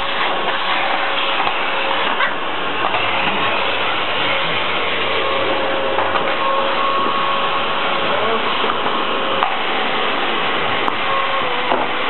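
Vacuum cleaner running steadily with a constant high motor whine, its floor nozzle sweeping over tiles, with a few light knocks here and there.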